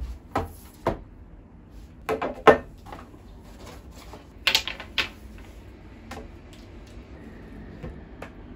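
Hard objects, a tablet and a small plastic device, being set down and arranged on a table, then the tablet being stood up in its holder. Several sharp knocks and clacks in small groups, the loudest about two and a half seconds in, followed by a few lighter ticks.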